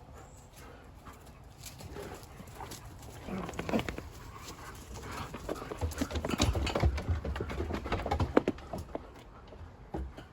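Dogs moving about and scrabbling, with scattered clicks, knocks and scuffling that are busiest about six to nine seconds in.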